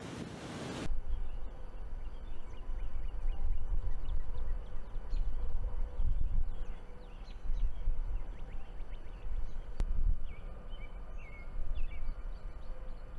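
Loud wind buffeting the microphone as a tornado passes, cut off suddenly about a second in. Then gusty low wind rumble on the microphone, with small birds chirping over it in short calls throughout.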